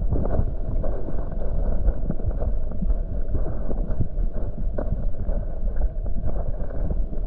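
Steady rush of falling water from the waterfall, with wind buffeting the microphone and scattered small knocks.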